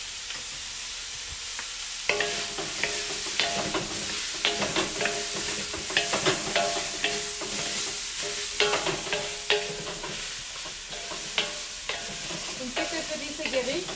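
Vegetables and chicken sizzling in a very hot wok on a kettle grill. From about two seconds in, wooden spatulas stir and toss the food, scraping and knocking against the wok.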